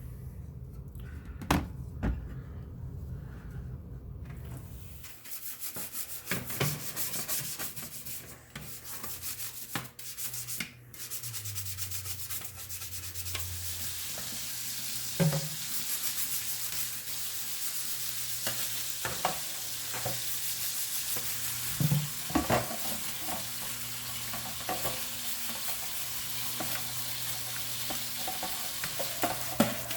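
Scrubbing of a Commodore 64C motherboard during cleaning: a steady scrubbing hiss that starts about five seconds in, with occasional knocks as the board is handled.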